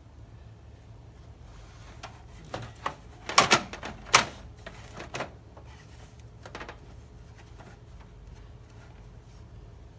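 A cluster of sharp knocks and clicks from PC hardware being handled and fitted in a computer case, loudest about three and a half and four seconds in, followed by a few lighter taps.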